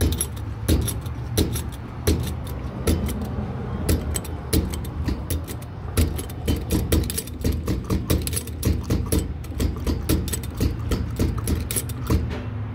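A vehicle running with a steady low drone, under constant irregular rattling and clinking like loose metal or keys jangling as it moves.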